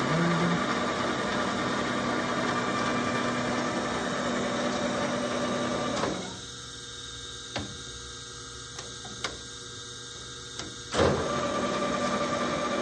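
MSC 14 x 40 gap bed engine lathe running steadily with a mechanical whir, then stopping quickly about halfway through. A few clicks follow, and the lathe starts up again suddenly and loudly near the end.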